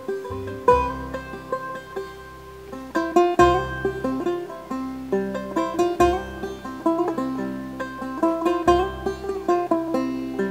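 Instrumental background music of quickly picked plucked strings over a bass line.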